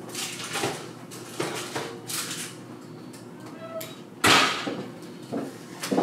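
A metal baking sheet lined with parchment is pulled off an oven's wire rack: rustling and scraping, with one loud scrape of the tray sliding out about four seconds in, then the oven door closing with a thump near the end.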